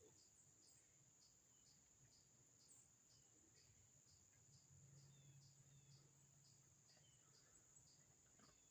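Near silence, with faint insects outdoors: a steady high drone and a cricket chirping about twice a second, with a few faint bird chirps.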